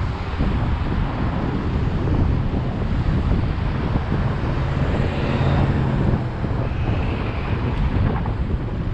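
Wind buffeting the microphone on a moving electric scooter: a dense, steady rumble that stays loud throughout.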